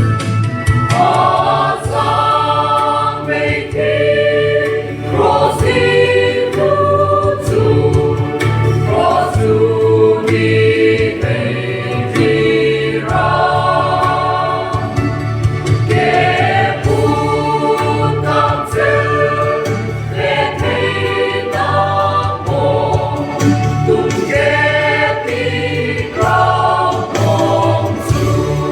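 Background gospel music: a choir singing over a steady low beat.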